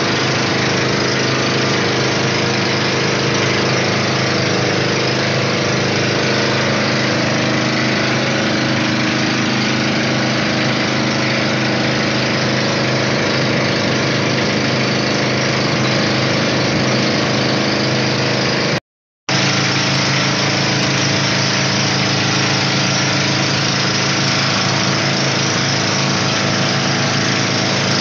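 Outrigger boat's engine running steadily under way: a constant hum of many even tones over a hiss. The sound cuts out completely for a moment about two-thirds of the way through, then the same running resumes.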